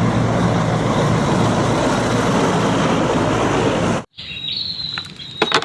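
A loud, steady rumbling noise like a motor vehicle running close by, cut off abruptly about four seconds in. After it, insects chirp with a steady high tone, and a couple of sharp clicks come near the end.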